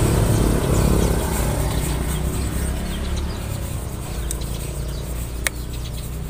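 A motor vehicle engine running with a low rumble that slowly grows quieter. There is a single sharp click about five and a half seconds in, and faint bird chirps.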